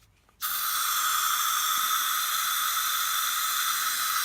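Aerosol air freshener can spraying in one continuous hiss of about four seconds, starting and stopping abruptly.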